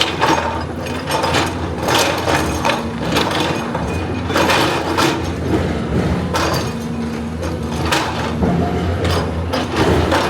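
Hydraulic excavator working: its diesel engine runs steadily under repeated, irregular metallic clanks and scraping from the machine working.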